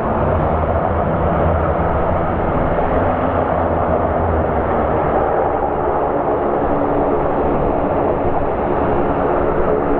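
Airbus A320 airliner's jet engines running steadily at low taxi power as it lines up on the runway: an even, loud rush with a few steady humming tones underneath.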